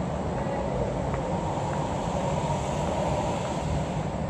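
Steady outdoor background rumble with no distinct events, an even noise heaviest in the low range.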